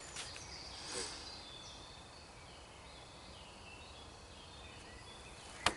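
Quiet woodland ambience with faint, scattered songbird calls. A single sharp click comes just before the end.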